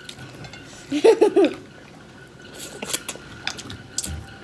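A child's brief wavering vocal sound about a second in, then faint clicks and slurps of children eating ramen noodles with wooden chopsticks from plates.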